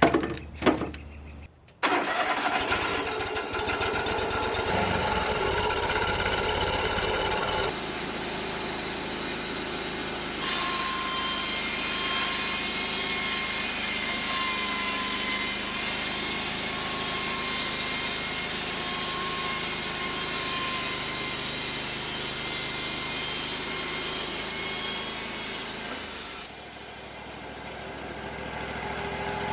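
A few knocks, then a portable bandsaw mill's engine starts up about two seconds in and runs steadily. From about eight seconds the blade resaws a cedar flitch with a hissing, whining cut. Near the end the sound drops away sharply to a lower running level.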